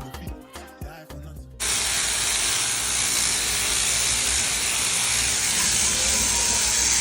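Background music, cut off about a second and a half in by a loud, steady hiss that holds evenly to the end.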